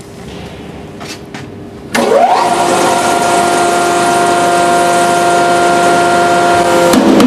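Hydraulic press's pump motor starting abruptly about two seconds in, its whine rising quickly to a steady pitch and then running steadily. Near the end its tone shifts lower and harsher as the press begins to bear down.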